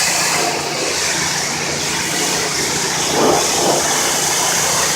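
Pressure washer running steadily: engine hum under the continuous hiss of the high-pressure spray on a greasy barbecue pit, swelling briefly a little past the middle.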